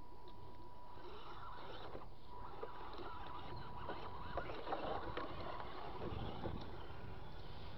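Remo Hobby trail crawler's small electric motor whining steadily as the truck climbs over a pile of loose wooden boards, with its tyres knocking and clattering on the wood from about two and a half to six and a half seconds in.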